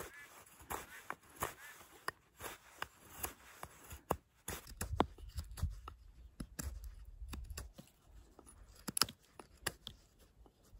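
Myerchin rigging knife's stainless steel blade shaving a partially dry green stick: a series of short, irregular scraping cuts as strips of wood are carved off.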